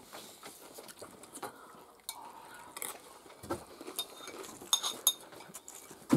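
Cutlery clinking and scraping against china plates while eating, with a few sharper clinks about five seconds in.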